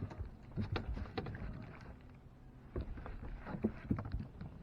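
Scattered knocks and light clatter of gear being handled in a small fishing boat, irregular and several a second at times, over a low steady hum.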